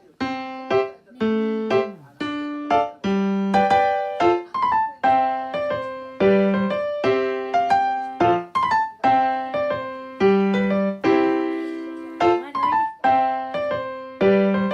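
Background music: a light piano melody of separate struck notes, each dying away.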